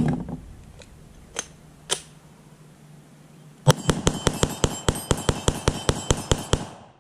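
A Glock 25 .380 ACP pistol in an MCK carbine chassis fires a fast string of about twenty shots in about three seconds, roughly seven a second, then stops. Before that come a metallic clack and two sharp clicks of the gun being handled.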